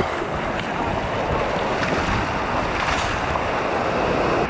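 Surf washing over shallow beach water and wind buffeting the microphone, with water splashing as a hooked shark is dragged through the wash.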